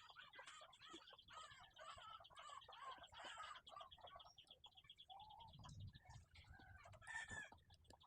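Chickens clucking faintly in the background, with a series of short calls throughout and a fast, high trill in the first half.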